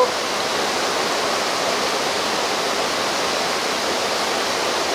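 Steady rush of flowing water, an even hiss-like noise that does not change.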